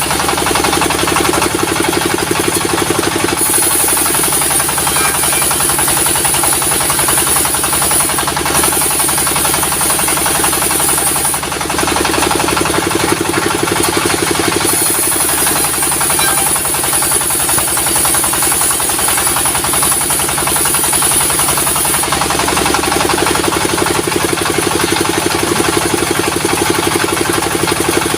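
Sawmill machinery driven by a diesel engine, running steadily with a rapid chugging pulse. A high hiss comes and goes in stretches of a few seconds.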